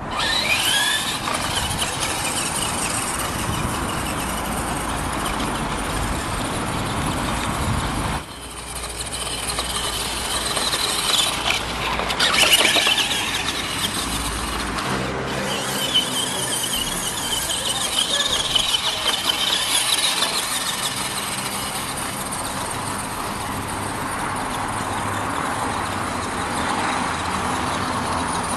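Radio-controlled ECX 2WD electric stadium truck driving on grass, its electric motor and gears giving a high whine that climbs as it takes off and rises and falls with its speed.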